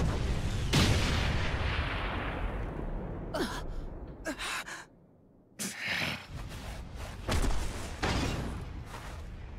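Cartoon fight sound effects: a heavy impact about a second in that fades off over a few seconds, then short gasps and several more sudden hits after a brief hush about five seconds in.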